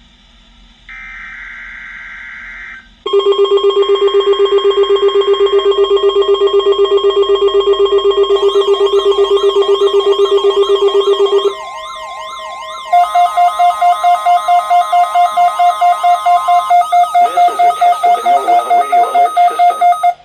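Electronic emergency-alert tones of a weekly EAS test. A short screech of coded header data comes about a second in, then loud alarm tones pulse rapidly with warbling siren-like sweeps layered over them. Near twelve seconds in they break off briefly and give way to a second, slower-pulsing tone pattern.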